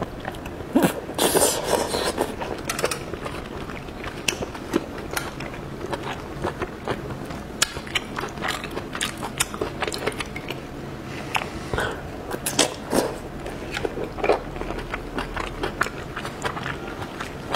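Close-miked eating sounds as seafood is bitten off skewers and chewed: wet smacking and a steady scatter of mouth clicks, with a louder bite about a second in.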